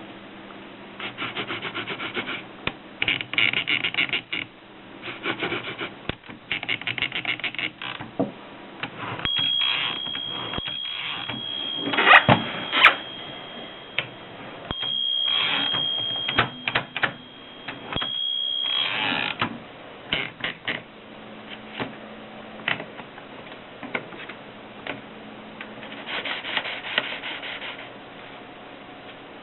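Erika 5 portable typewriter (1939) being handled and worked: bursts of fast ratcheting clicks, rubbing and sliding of the mechanism, and a few sharp mechanical knocks, the loudest about twelve seconds in. A steady high tone runs through the middle for about ten seconds.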